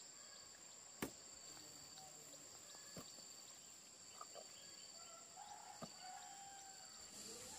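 Quiet rural ambience: a steady, high-pitched insect drone, with a sharp click about a second in and a few faint chirps.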